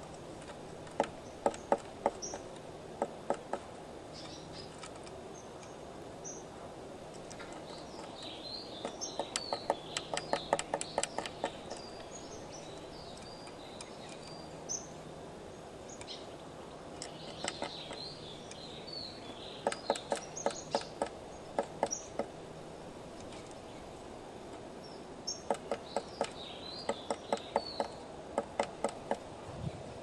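Blue tit pecking at the wood of a nest box: bouts of rapid, sharp taps, four runs of them, with high bird chirps and twitters over them.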